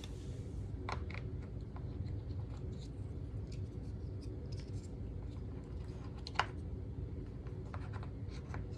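Hard plastic vacuum cleaner parts and attachments being handled and fitted: scattered light clicks and scraping, with one sharper click about six seconds in, over a steady low hum.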